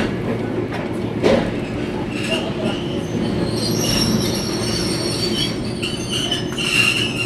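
Toyohashi Railway 3500-series tram running slowly into its terminus, heard from inside the car: a steady low hum of the running gear, and from about two seconds in a high, wavering squeal from the steel wheels that swells near the end.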